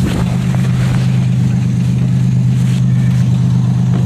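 A car engine running steadily at idle, its hum even and unchanging in pitch.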